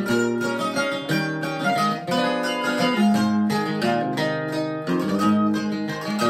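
Mandolin and acoustic guitar playing a country tune together, with the guitar strummed under plucked mandolin notes.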